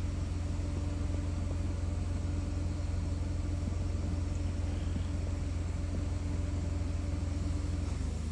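A steady low hum, even in level throughout, with a faint steady tone above it; it cuts off abruptly at the end.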